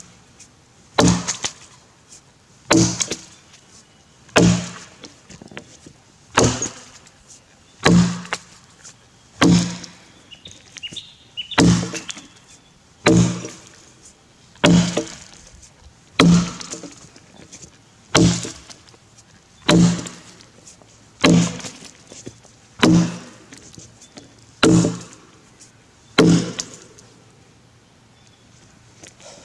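Tassie pattern axe chopping into a grey gum log, about one stroke every second and a half. Each stroke is a sharp thunk with a short ring. The chopping stops a couple of seconds before the end.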